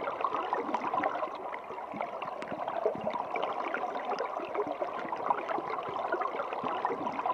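Water trickling and gurgling, a steady run of many small splashes and bubbling drops.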